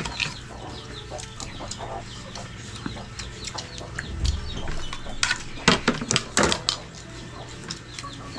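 Chickens clucking, with a few sharp clacks from about five to six and a half seconds in.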